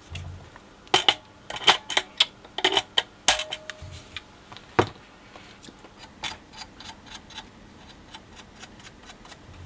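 Small metal tools and parts clicking and tapping against the BSR record changer's metal deck: a quick run of sharp clicks, one leaving a short ringing tone, then lighter, scattered ticks.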